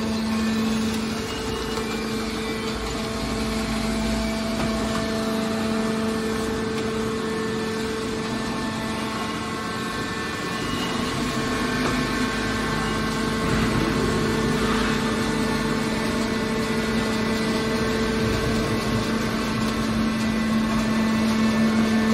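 Hydraulic scrap metal baler's power unit running with a steady hum.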